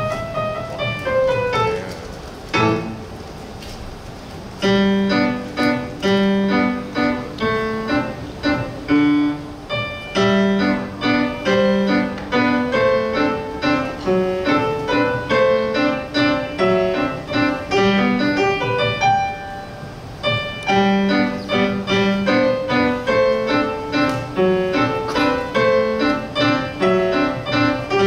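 A child playing a solo piano piece: a descending run of notes, a short pause about three seconds in, then a steady, repeating pattern of melody over low bass notes.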